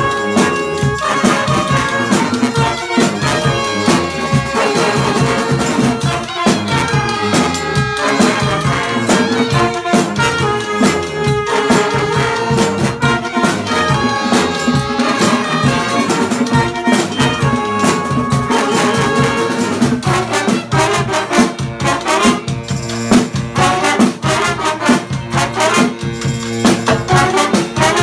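A live brass band of saxophones, trumpets and a sousaphone playing a tune together over a snare drum, with the drum hits growing busier about two-thirds of the way through.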